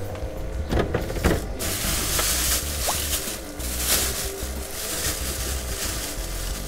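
A thin plastic bag rustling and crinkling as it is pulled out of a refrigerator's vegetable drawer, with a couple of knocks from the drawer about a second in. Background music runs underneath.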